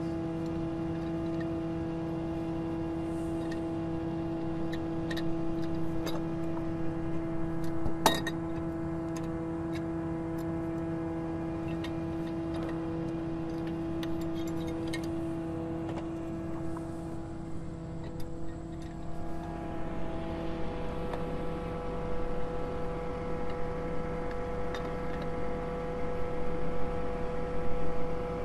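Engine of a well pump-hoist service truck running steadily, its pitch stepping up about two-thirds of the way through. A single sharp knock about 8 seconds in.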